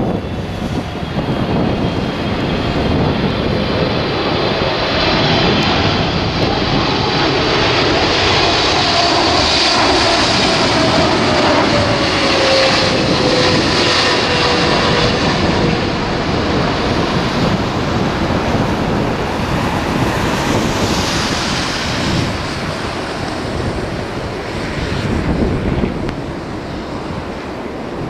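Jet engines of a KLM Boeing 777 on final approach passing close by: a loud, steady engine noise with a high fan whine. It is loudest around the middle as the engine tone drops in pitch, then eases off as the airliner reaches the runway near the end.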